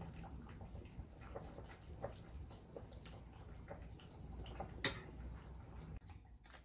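Faint room tone: a low steady hum with scattered light clicks and one sharper click about five seconds in.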